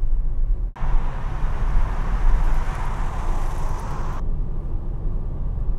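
Ford Mondeo on the move: steady low engine and road rumble. A brief dropout comes just under a second in, then a hiss of tyre and wind noise joins from about one to four seconds in and stops abruptly.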